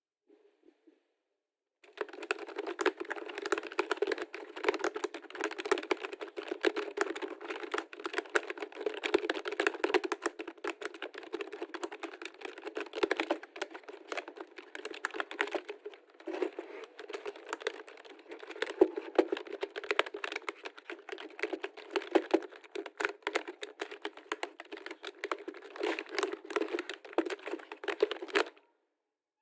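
Computer keyboard being typed on in a fast, continuous run of key clicks, starting about two seconds in and stopping shortly before the end.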